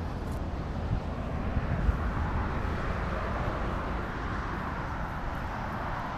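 Distant engine noise, a smooth drone that builds about a second in and holds, over wind rumbling on the microphone with a couple of low thuds.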